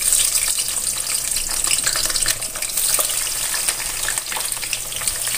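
Cut purple eggplant pieces sizzling and crackling in very hot oil in a wok, starting suddenly as the pieces go in and then running on as a steady hiss with many small pops.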